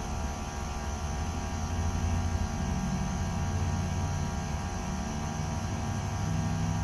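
Steady low machine hum with a few held tones under a faint hiss.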